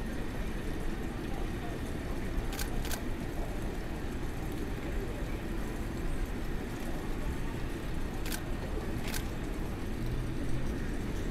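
Steady street-traffic rumble, with a DSLR shutter clicking four times in two quick pairs, about two and a half seconds in and again about eight seconds in.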